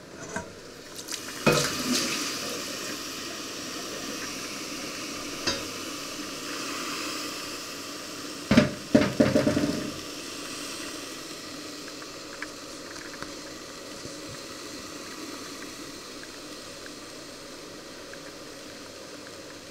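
Stainless steel steamer pot and lid clanking on the hob: single knocks twice, then a quick run of metal clatters just before halfway, over a steady hiss of simmering water that eases off in the second half.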